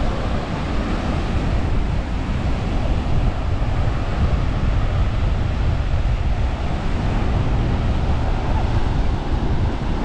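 Strong wind buffeting the microphone in a steady low rumble, over the wash of surf on the beach.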